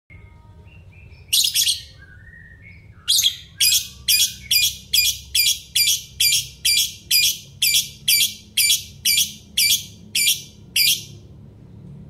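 Caged lovebird calling: a few soft chirps and two sharp calls, then from about three seconds in a run of loud, shrill calls repeated about twice a second, stopping about a second before the end.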